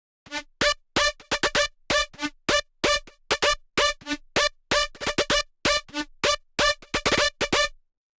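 Short, bright synthesizer notes played in a quick rhythmic run of about four a second, with little deep bass, stopping just before the end.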